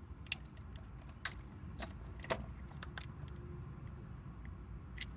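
Scattered small metallic clicks and taps from hand-working a spark plug wire terminal and boot with tools, over a steady low rumble.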